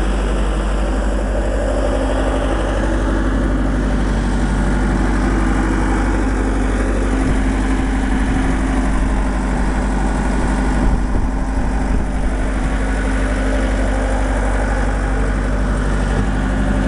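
Bobcat 863 skid-steer loader's diesel engine idling steadily.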